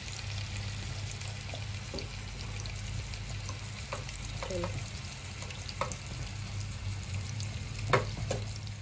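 Kebabs shallow-frying in a little oil in a pan: a steady sizzle with scattered small pops and spatters.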